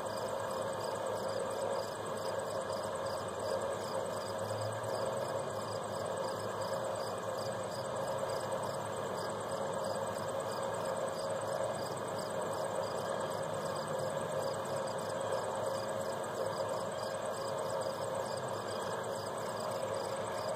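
Steady outdoor ambience: a constant low hum and hiss, with faint, evenly repeating high insect chirps over it.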